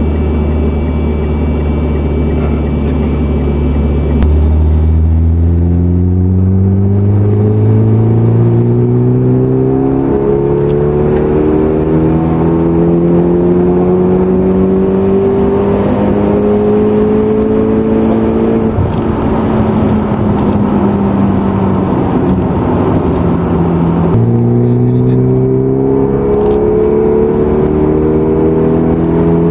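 Turbocharged four-cylinder engine of a tuned Lancer/Inspira built to Evo X spec, heard from inside the cabin while accelerating hard on a road tuning run. Its pitch climbs smoothly for about fourteen seconds, then eases off and sags. About 24 seconds in it drops after a gear change and starts climbing again.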